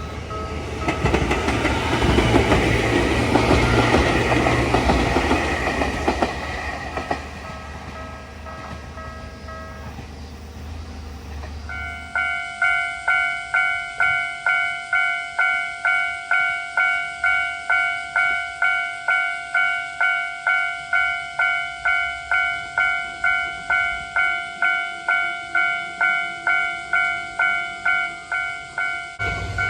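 A train passes over a Japanese level crossing with a loud rushing noise while the crossing's electronic bell rings, fading out by about ten seconds in. From about twelve seconds, a level crossing's electronic alarm bell rings in a steady, even rhythm of about two strikes a second.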